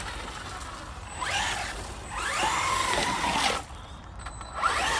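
Electric RC car's motor whining, rising sharply in pitch several times as the car accelerates in bursts.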